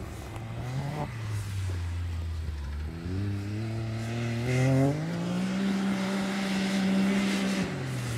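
A Can-Am Maverick X3 side-by-side's turbocharged three-cylinder engine revs under throttle. Its pitch climbs, dips about a second in, climbs again from about three seconds, holds high for a couple of seconds, then drops as the throttle comes off near the end.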